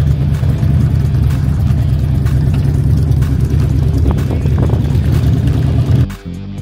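Loud, steady low rumble of V-twin motorcycle engines rolling slowly past in street traffic. It cuts off abruptly about six seconds in.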